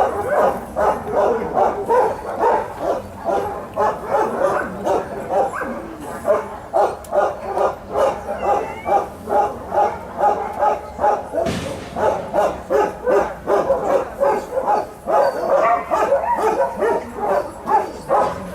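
Several shelter dogs barking without a break, a quick run of barks about two or three a second.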